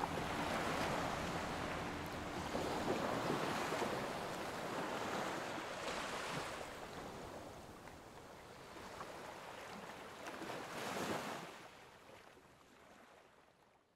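Ocean surf washing in waves, swelling a few times and then fading out near the end.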